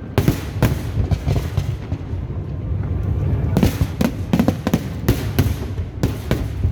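Aerial fireworks bursting in clusters of sharp bangs, several in quick succession at times, over a steady low background din.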